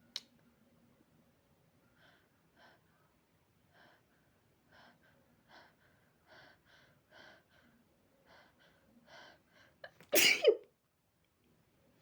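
A person's sneeze build-up: about a dozen short, catching breaths that grow louder over several seconds, then one loud sneeze about ten seconds in. The sneeze is brought on by body spray, to which the sneezer is mildly allergic. A brief click sounds at the very start.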